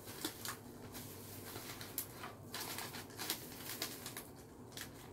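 Disposable plastic gloves and the paper liner crinkling and rustling as a slice of pizza is pulled apart, in short scattered crackles.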